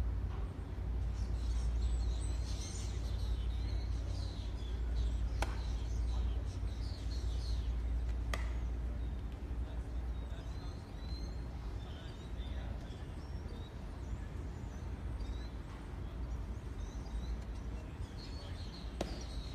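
Outdoor ballpark ambience: a steady low rumble with birds chirping now and then, and three sharp cracks from the baseball in play, about five seconds in, about eight seconds in, and near the end.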